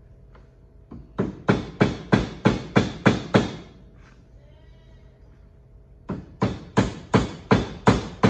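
Hammer blows driving a new front leaf spring bushing into a Club Car DS golf cart's suspension: two runs of quick, even taps, about three a second, with a pause of a few seconds between. The bushing is not yet fully seated.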